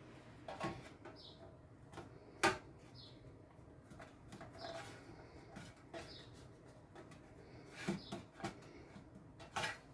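Light kitchen clatter of a cake mold and utensils being handled: scattered taps and knocks, one sharper knock about two and a half seconds in, with faint short high chirps repeating every second or two.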